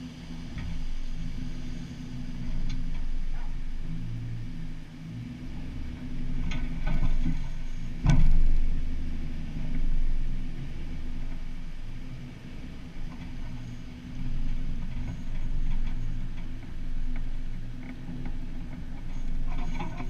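Off-road vehicle's engine running at crawling speed, rising and falling in swells as it climbs over rock ledges, with one sharp loud knock about eight seconds in.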